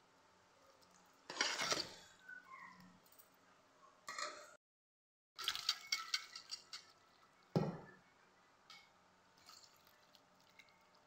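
A spoon scraping and clinking against a stainless steel pot while penne in thick béchamel sauce is stirred, in several short bursts. The sound drops out to dead silence for under a second near the middle, and one sharp knock follows a couple of seconds later.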